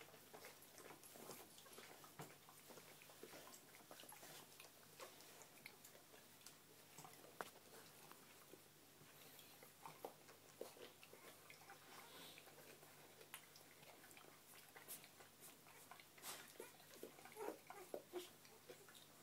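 Newborn Springer Spaniel puppies suckling at their mother: faint wet sucking and smacking, with many small clicks that grow busier near the end.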